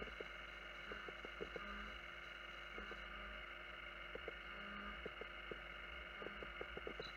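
CNC milling machine cutting a metal block with a four-flute end mill under flood coolant: a steady, faint high whine from the spindle and cut, with scattered light ticks and a short low hum that comes and goes every second or two.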